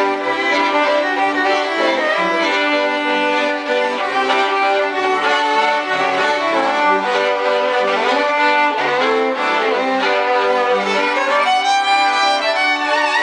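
Several fiddles bowed together playing a folk tune in unison and harmony, over a lower bowed string instrument.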